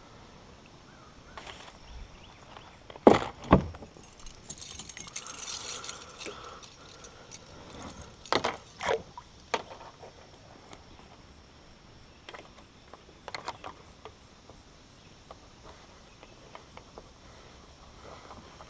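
Fishing gear being handled aboard a kayak: scattered sharp knocks and clicks, loudest twice about three seconds in and twice more around eight to nine seconds, with a brief metallic jangle in between.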